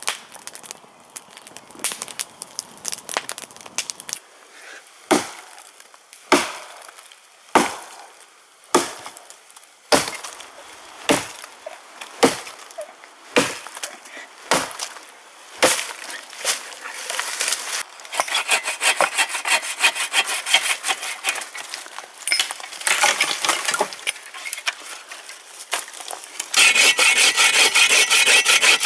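Wood being cut: about ten sharp knocks on wood roughly a second apart, then the rasping strokes of a bow saw cutting through a small log, louder and faster in the last couple of seconds.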